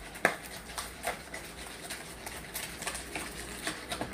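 Wire whisk beating eggs and melted margarine in a plastic mixing bowl: irregular clicking and tapping of the wires against the bowl, several a second, the sharpest tap just after the start.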